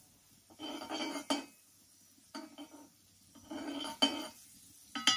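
A metal spoon scraping and clinking against a metal bowl and a frying pan as sliced sausage is spooned from the bowl into the pan. It comes as several short scrapes, then a sharp ringing clink near the end.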